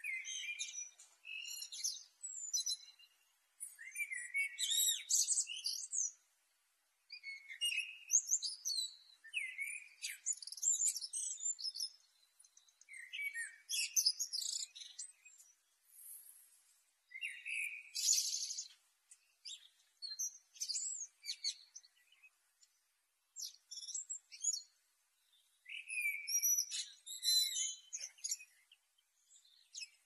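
Male common blackbird singing: about a dozen phrases of a second or two each, separated by short pauses. Each phrase mixes lower warbled notes with high, squeaky twittering notes.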